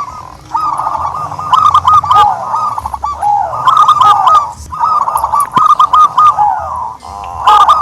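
Turtledove calling: repeated bouts of quick, arching notes, a new bout every second or two.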